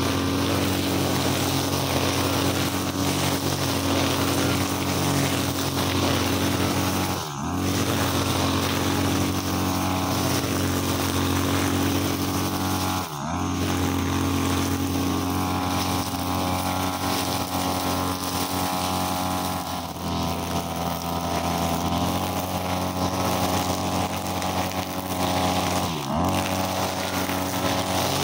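43cc backpack brushcutter engine running at high revs, its 2.8 mm nylon line cutting short grass. Three times the revs dip briefly and climb straight back up as the throttle is eased and reopened.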